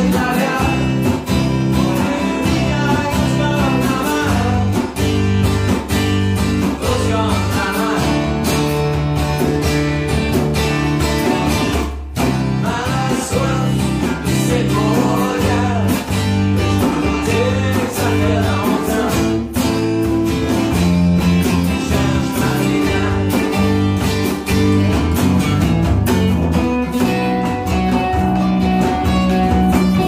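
Acoustic trio playing together: an acoustic guitar and an acoustic bass guitar over a djembe hand drum played with the hands.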